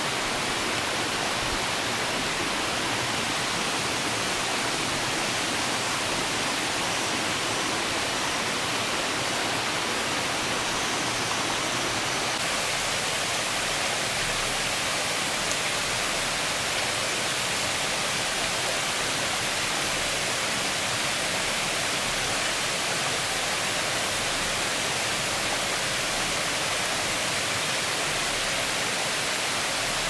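Waterfall: the steady rush of falling water, an even hiss with no breaks.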